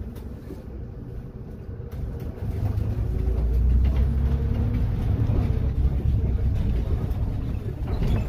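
Solaris Urbino 12 city bus heard from inside while moving. The low engine rumble gets louder about two and a half seconds in, with a faint whine rising in pitch as the bus accelerates.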